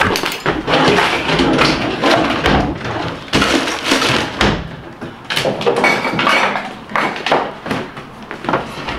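A rapid, irregular run of knocks, thumps and bangs from someone moving about and handling things in a small room.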